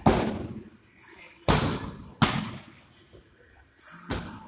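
Gloved muay thai strikes slapping into handheld focus mitts: four sharp smacks, the last one weaker, each echoing briefly in a large hall.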